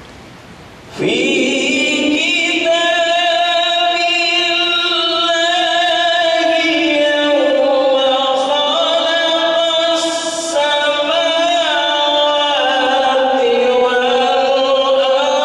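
A man singing solo into a microphone, starting about a second in: a slow, free-flowing Islamic devotional chant (sholawat) with long held notes that waver and slide in pitch.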